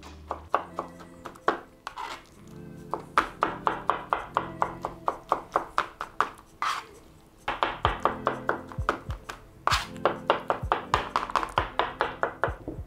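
Chef's knife chopping soft roasted eggplant on a plastic cutting board: quick knocks of the blade on the board, about three or four a second, with a couple of short pauses. Background music plays under it.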